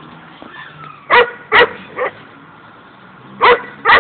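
Pit bull barking: three short barks about a second in, the last one weaker, then two more near the end.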